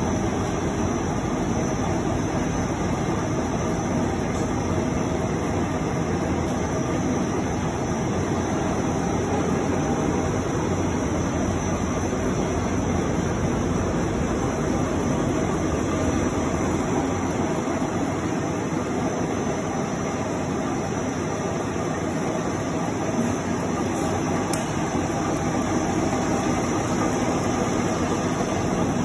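Wanchen 4-650 four-colour flexographic printing press running: a steady, even mechanical running noise with a faint constant hum.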